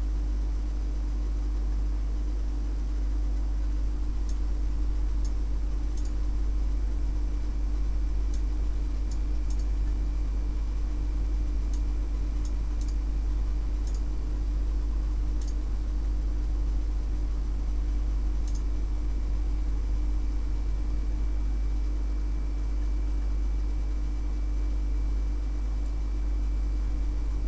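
Steady low electrical hum with hiss, unchanging throughout, with a dozen or so faint sharp clicks scattered through it.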